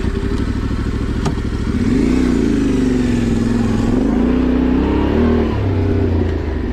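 Yamaha Ténéré 700's parallel-twin engine running under throttle. It revs up about two seconds in, holds there with small rises and falls, then drops back to a lower steady note near the end.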